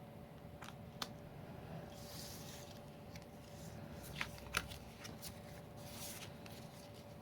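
Trading cards being handled and flipped through: soft sliding rustles of card on card, with a few sharp clicks, the loudest about four and a half seconds in.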